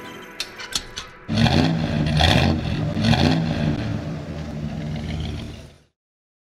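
Three quick metallic clinks, then an engine revved in several surges, rising and falling in pitch, which stops abruptly near the end.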